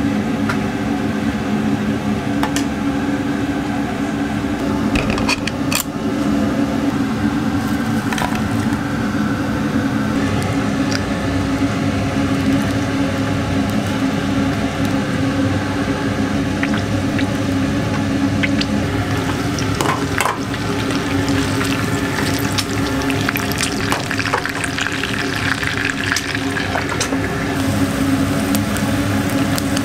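An egg frying in oil in a small pan, sizzling with scattered pops that get busier in the second half, over a steady low hum.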